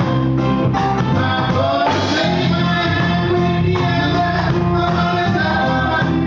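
Live band music: a man and a woman singing into microphones over electric keyboard and drum kit.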